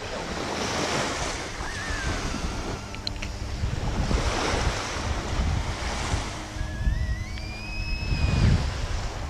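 Wind buffeting the microphone with a heavy low rumble, over a hiss that swells and fades every couple of seconds.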